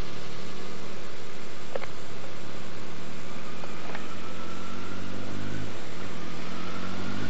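A vehicle engine running steadily, with a faint whine that rises slowly in pitch twice, and a couple of light clicks.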